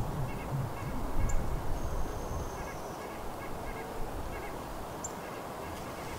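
Canada goose calling with low honks, loudest about a second in, then easing off. A small songbird chirps faintly in the background.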